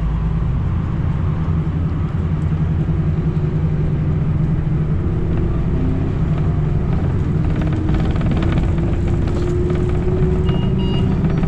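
City bus under way, heard from inside the passenger cabin: a steady low drone of the drivetrain and road noise, with a faint whine slowly rising in pitch from about halfway through.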